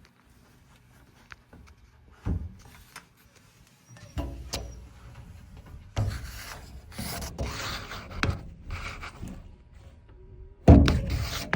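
Irregular rubbing and scraping handling noises with several knocks, and a louder thump near the end.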